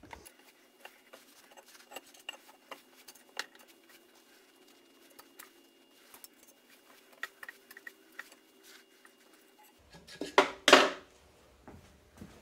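Light metallic clicks and ticks from a screw-type valve spring compressor being tightened on a Slant 6 cylinder head, pushing a double valve spring and its retainer down. A couple of louder knocks come about ten seconds in.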